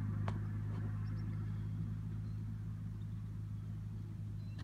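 Car engine idling with a steady low hum, and a single sharp click about a third of a second in.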